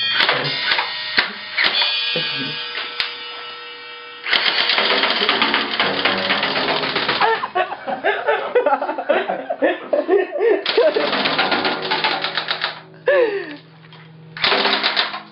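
Airsoft M4A1 replica fired in rapid automatic bursts at a drum kit, BBs clattering fast off the drums and cymbals. There are three bursts, the first about three seconds long, the next about two, the last starting near the end, with cymbals ringing in the opening seconds.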